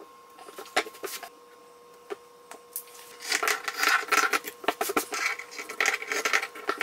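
Scissors cutting through cloth: after a few light clicks and taps, a quick, continuous run of crisp snips and rasps starts about three seconds in as the blades work through the fabric.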